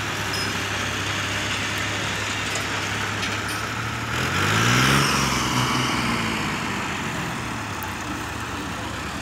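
Diesel farm tractor engines running steadily. About four seconds in, one revs up hard, rising in pitch and loudness, then eases back down over the next two seconds, as a tractor pulls a heavily loaded trailer.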